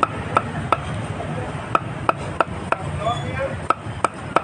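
Blade chopping food on a cutting board: sharp, regular strokes about three a second, with a short pause about a second in.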